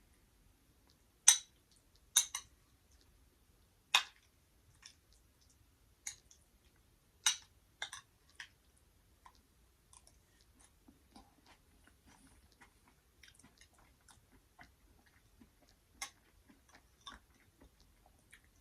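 A person chewing food, faint and irregular, with a few sharp clicks scattered through it, the loudest just over a second in and at about 4 s.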